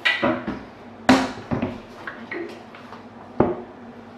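Pantry cabinet door being handled and shut: a few sharp wooden knocks and clunks, the loudest about a second in and another near the end.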